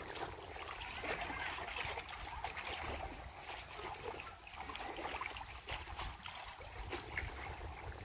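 Small sea waves lapping and trickling against a stone quay wall, with wind rumbling on the microphone.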